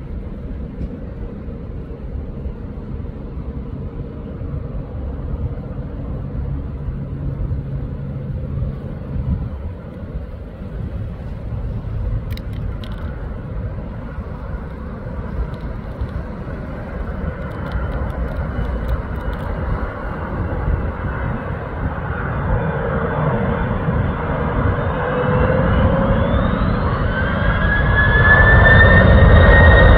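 Jet engines of a grey military Airbus A330 tanker-transport on landing approach with gear down, a low rumble that grows steadily louder as it nears. In the last few seconds a high engine whine rises and then starts to fall as the aircraft comes overhead.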